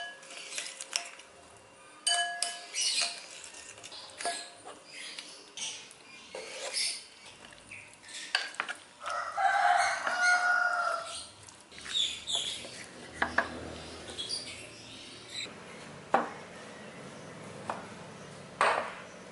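Utensils clinking and knocking against cookware in short, scattered strikes. A rooster crows once in one drawn-out call about nine seconds in.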